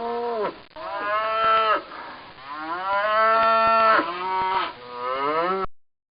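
A cow mooing: several long, wavering moos one after another, cutting off suddenly near the end.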